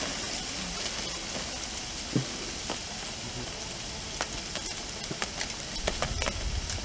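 Light wind hissing through tree leaves, with scattered sharp ticks from about a third of the way in. A gust of wind buffets the microphone near the end with a low rumble.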